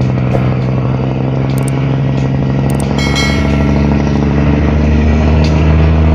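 A barge's engine running hard at full throttle in a steady deep drone as it strains to push the barge over shallow water. Its note drops lower and grows a little stronger from about four seconds in, and a brief high ringing tone sounds about three seconds in.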